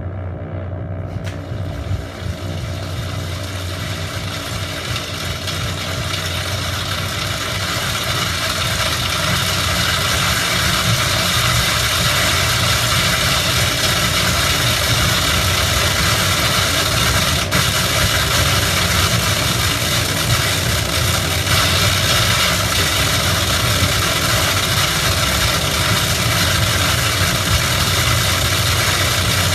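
A steady mechanical hum with a rushing noise, like a motor or blower running, that swells over the first ten seconds or so and then holds steady and loud.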